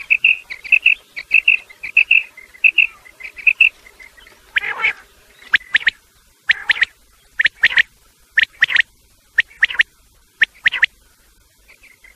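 Quail calling: quick paired chirping notes repeat under a second apart, then from about five seconds in come louder, harsher paired calls about once a second. This is a quail call for luring quail in hunting.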